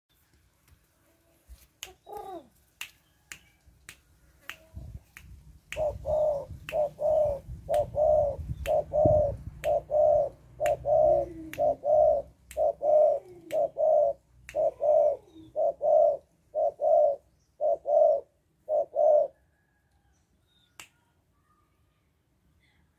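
A young spotted dove calling: one falling call about two seconds in, then a long run of short, even coos, about two a second, that stops near the end. Sharp finger snaps sound through it.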